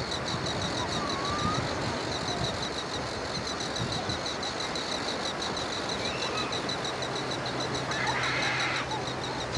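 Beach ambience: a steady wash of surf and wind, with a few faint distant bird calls. A fast, even, high-pitched pulsing runs throughout, and a low steady hum joins about six seconds in.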